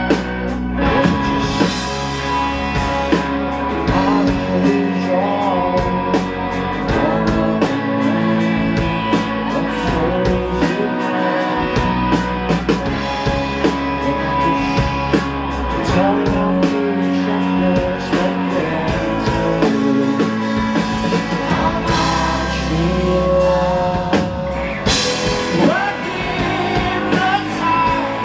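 A rock band playing live: electric guitars and a drum kit under a sung lead vocal, at a steady high level.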